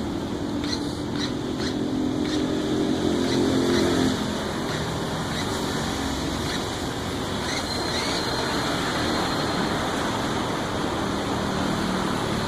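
Homemade robot vacuum prototype running, its fan giving a steady rushing noise. A pitched motor hum rides on top and stops about four seconds in, with a few faint clicks early and a faint high whine in the middle.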